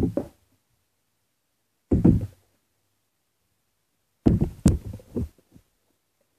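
Plastic water bottle thudding down on a table in bottle flips: a knock at the start, another about two seconds in, and a run of several knocks from about four to five and a half seconds in as the bottle lands and tumbles.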